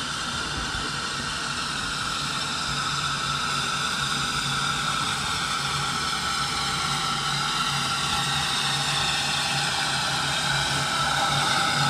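SECR H class steam tank locomotive No. 263 moving slowly closer: a steady hiss with a few high ringing tones and a low hum, growing gradually louder.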